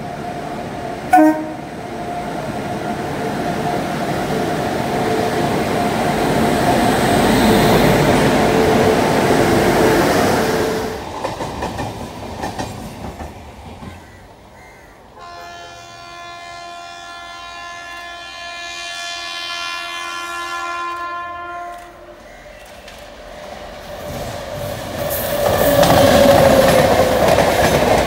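Indian Railways electric-locomotive-hauled passenger trains: a steady rumble swells as a train runs in, with a brief sharp sound about a second in. About fifteen seconds in comes one long train horn blast, held for about seven seconds. Near the end a train passes close, with rising wheel and coach noise.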